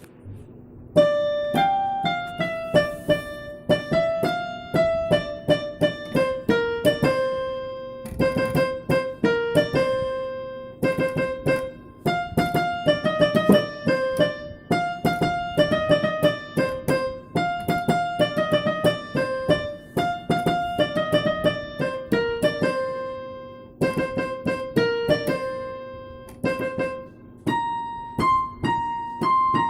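Background music: a piano or electric-piano melody of single struck notes that ring and fade.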